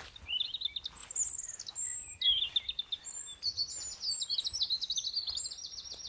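A small songbird singing a run of rapid, high trills and chirps, one quick phrase after another with sudden jumps in pitch.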